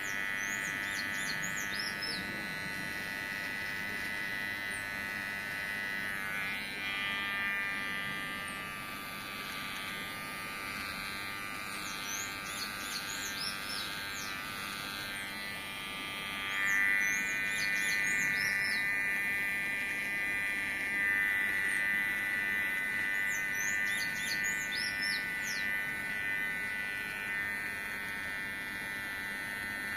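Electric hair clipper buzzing steadily while shaving a beard. The motor whine swells louder at times, most strongly in the second half, as the blade is worked over the face.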